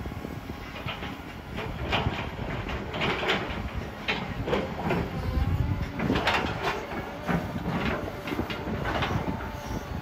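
Heavy excavator working on gravel: a diesel engine runs steadily under repeated irregular metallic clanks and scrapes from the bucket, linkage and steel tracks.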